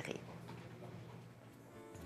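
Faint music in a quiet pause, its sustained notes coming in more clearly near the end.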